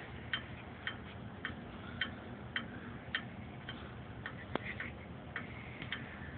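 Steady, regular ticking, a little under two ticks a second, like a clock, with one sharper click about two-thirds of the way through.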